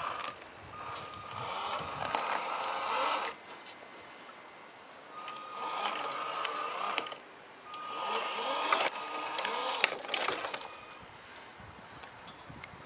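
Small electric drive motor and gearbox of a radio-controlled model Scania truck whirring with a steady whine, in three bursts of a few seconds each as the truck drives in short stints, with a few sharp clicks near the end of the last burst.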